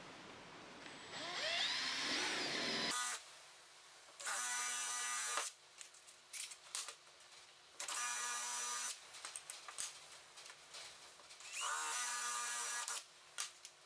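18 V cordless drill boring holes in small iroko hardwood blocks. A run of about two seconds near the start has a pitch that wavers under load. Three short steady whining bursts of about a second each follow, with small handling clicks between them.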